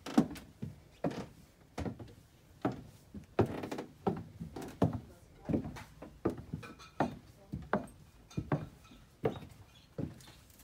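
Footsteps walking at an even pace on a hard floor, a dull thud about every three-quarters of a second.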